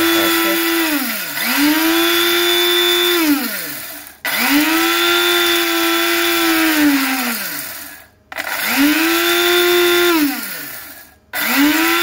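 Nima Japan small electric spice grinder grinding cumin seeds, run in bursts of two to three seconds. Each time, the motor whine rises to a steady pitch, holds, then falls away as it winds down, about five times over.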